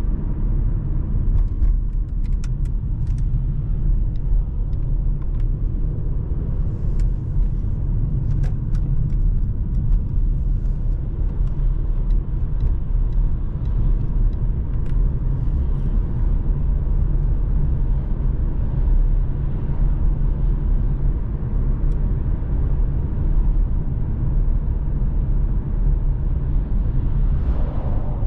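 2020 Mercedes-AMG C43 under way, its 3.0-litre twin-turbo V6 and road noise making a steady low rumble. A few faint clicks come in the first ten seconds.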